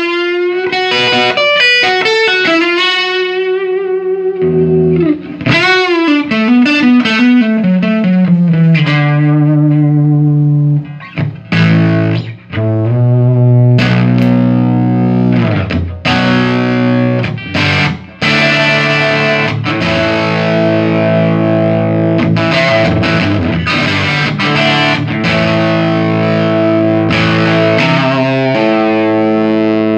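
Electric guitar played through a 1975 Fender Twin Reverb master-volume amp, being sound-tested after servicing. Distorted single-note lead lines with bends and vibrato give way, about ten seconds in, to sustained distorted chords and riffs.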